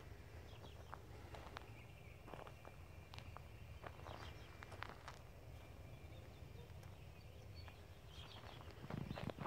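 Faint footsteps on gravel and packed dirt, irregular soft crunches, over a low steady rumble.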